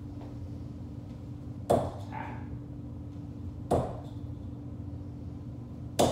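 Three steel-tip darts striking a Prodigy bristle dartboard one after another, about two seconds apart, each a short sharp thud, over a steady low hum.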